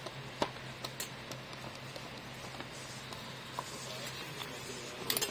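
Screwdriver turning a Phillips screw out of a plastic motorcycle cover: faint, scattered clicks and scrapes of the tool in the screw head, with a quick run of sharper clicks near the end. A steady low hum runs underneath.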